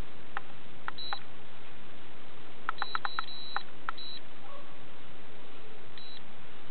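Control-panel buttons of a Daiwa Super Tanacom EX 60 electric fishing reel being pressed: sharp clicks, several answered by short high electronic beeps, with a quick run of presses about three seconds in and one more near the end, over steady hiss.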